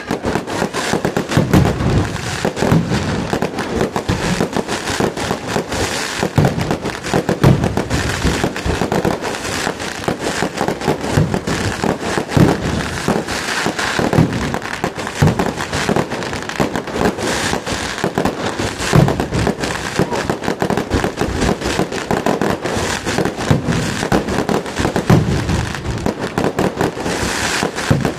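Fireworks going off: a dense, unbroken barrage of firecracker bangs and crackling, with heavier booms mixed in every second or two.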